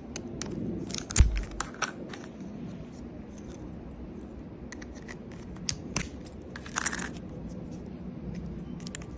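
Small objects being handled: scattered clicks and light rattles, with one heavier thump about a second in, over a steady low hum.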